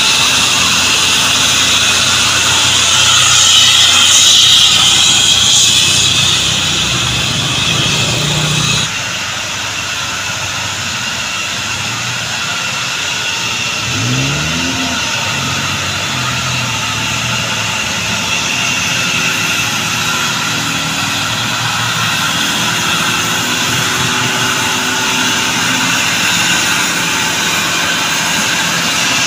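Tadano truck crane's diesel engine running as the crane drives along, with a loud high whistling hiss that makes it sound like an aircraft. The sound changes abruptly about nine seconds in, and a rising engine note is heard near the middle.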